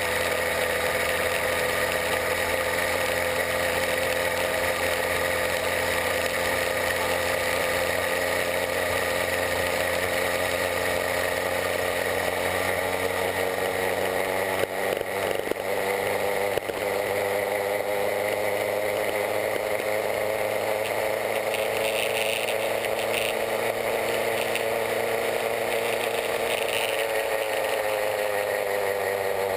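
66/80cc Chinese two-stroke bicycle kit engine running steadily while riding, its pitch falling near the end as it slows.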